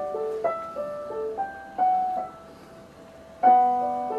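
Digital keyboard played with a piano sound: a slow melody of single notes ringing over lower held notes, with a quieter spell before a loud chord is struck near the end.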